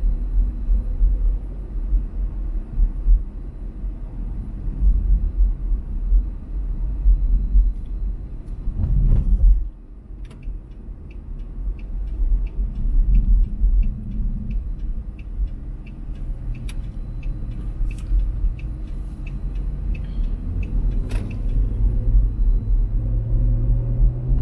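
Car cabin rumble of engine and tyres while driving on city streets, with a loud thump about a third of the way in. After the thump the rumble drops, and the turn signal ticks steadily for about ten seconds as the car slows for a turn.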